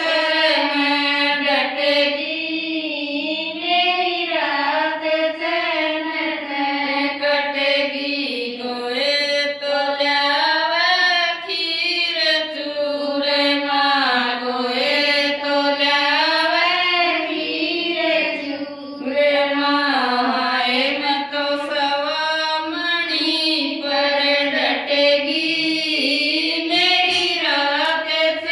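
Women singing a Rajasthani devotional bhajan to Balaji, a ratijaga night-vigil song, with a continuous melody that rises and falls.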